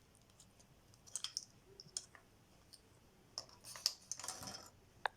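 Faint clicks and light clatter of plastic hair-dryer parts being handled, in small clusters, with one sharp click near the end.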